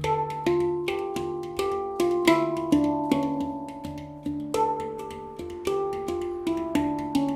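Handpan tuned to a D Kurd Hijaz scale (low D3 ding; A3 B♭3 C♯4 D4 E4 F4 G4 A4) played as a melody. Notes are struck about three a second and ring on over one another, with the low ding still sounding at the start.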